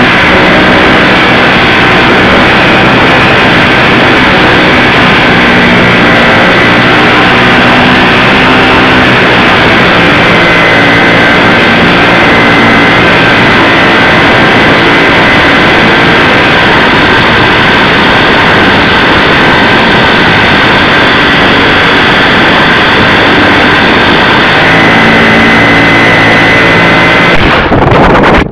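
ParkZone Super Cub RC plane's electric motor and propeller heard from its onboard camera, a loud steady whine with wind rush on the microphone; the pitch shifts a few times with the throttle.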